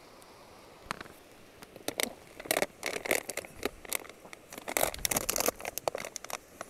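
Plastic water bottle crinkling and crackling in the hand while it is drunk from: a run of irregular crackles and clicks.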